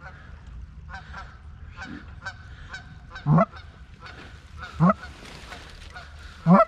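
Goose call blown by a hunter in three loud honks about a second and a half apart, each breaking from a low note up to a high one, over the fainter, repeated honking of geese flying in.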